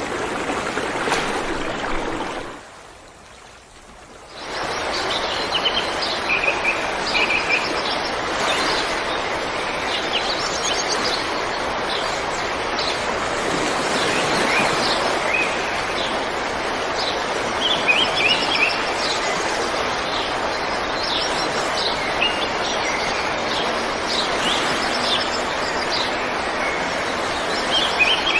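Steady rushing of running water that dips sharply for about two seconds near the start, then returns with many small birds chirping and trilling over it.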